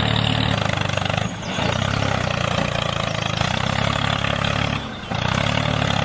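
Tractor engine running steadily with a low, even drone that briefly drops away twice, about a second in and again near the end.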